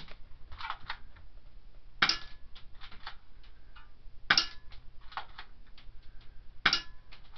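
BB gun firing: four sharp cracks about two seconds apart, each followed by a few fainter clicks.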